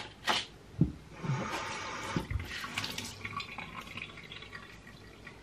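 A few sharp clicks and knocks, then water running from a tap for about four seconds, fading toward the end.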